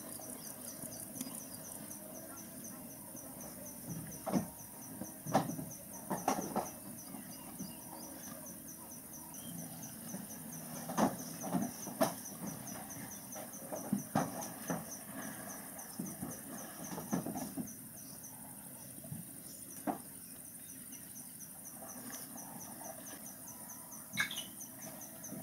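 Insects chirping in a steady, rapid, evenly pulsed high trill. Scattered short knocks and thuds come through it every second or two and are the loudest sounds.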